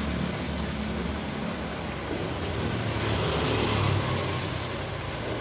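Steady background noise with a low hum, swelling a little about three seconds in.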